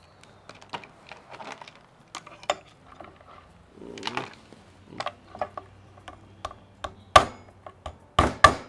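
Dungeness crab pieces and a heavy cleaver-style knife handled on a wooden cutting board: scattered light clicks and knocks of shell and blade on wood. Near the end come three sharp whacks as the knife comes down to crack the crab's leg shells.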